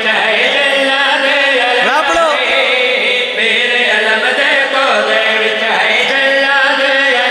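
Male voices chanting a mourning verse together in a long, drawn-out melody, amplified through microphones and a loudspeaker system.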